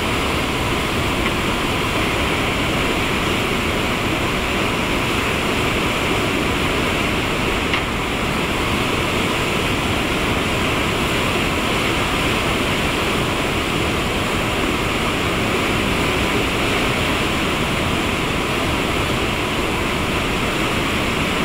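Steady rushing of whitewater rapids churning through a narrow rock canyon.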